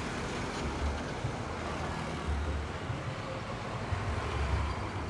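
A Hino Ranger diesel box truck passing close by and pulling away, its engine and tyres heard over steady road traffic with motorbikes, with an uneven low rumble throughout.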